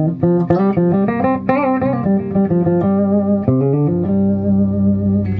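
LTD Phoenix 200DX electric guitar played through an amp: a short melodic run of single notes, then a note held from about four seconds in.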